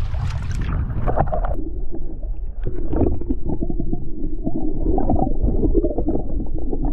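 Water splashing as the camera dips in, then about a second and a half in the sound turns muffled: the low gurgling and crackling of shallow sea water heard through a submerged camera.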